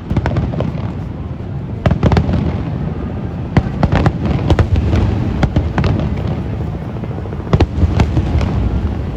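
Aerial fireworks bursting in quick succession: sharp bangs and crackles over a continuous low rumble, with the densest volleys about two seconds in, around the middle and near the end.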